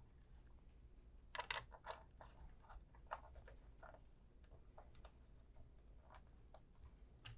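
Faint clicks and scrapes of a small screwdriver working the screw terminals of a Resideo plug-in AC transformer, with a short cluster of sharper ticks about a second and a half in.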